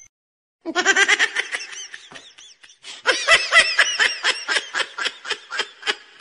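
High-pitched human laughter in two long runs of quick, evenly repeated 'ha' sounds, about five a second, with a short break about two and a half seconds in.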